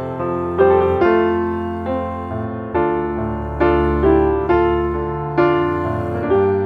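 Slow, gentle piano music: single notes and chords struck about once a second, each ringing and fading before the next.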